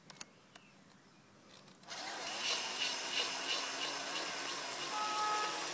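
A steady grinding noise starts about two seconds in: an engine valve turning against its seat with grinding compound, being lapped in place.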